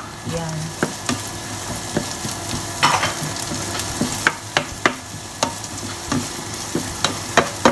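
Chopped onion frying in hot coconut oil with garlic and ginger, sizzling steadily, while a spatula stirs it and clicks and scrapes against the frying pan every second or so.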